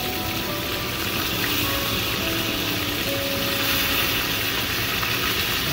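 Whole round scad frying in hot oil in a pan, a steady sizzle, with quiet background music of held notes over it.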